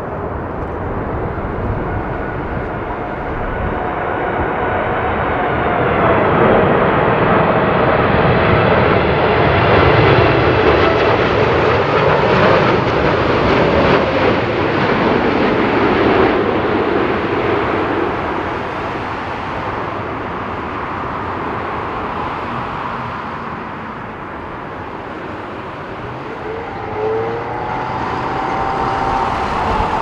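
Boeing 747-8 freighter's four GEnx jet engines on landing approach, the jet noise building to its loudest as the aircraft passes low and fading after, with an engine whine that falls in pitch as it goes by. Near the end a higher engine whine rises.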